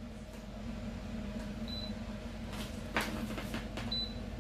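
Air fryer running with a steady hum, with two short high electronic beeps and a single knock about three seconds in, as the second tray of chips is set to cook longer.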